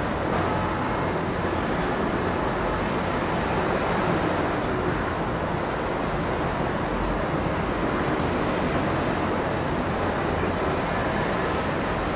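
Steady outdoor city ambience: a constant rumble and hiss with no single sound standing out.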